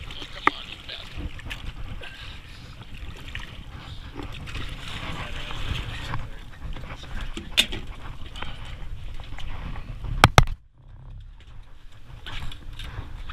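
Water sloshing and wind noise on the deck of a fishing boat at sea, with a low rumble underneath and a few sharp knocks, the loudest a pair about ten seconds in.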